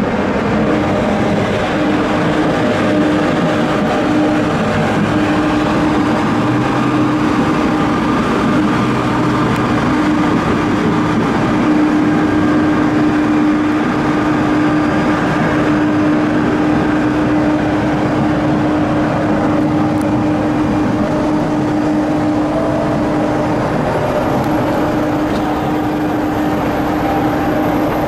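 Loud, steady airport apron noise beside a parked jet airliner: an even rushing drone with a constant low hum. A faint high whine rises slowly near the end.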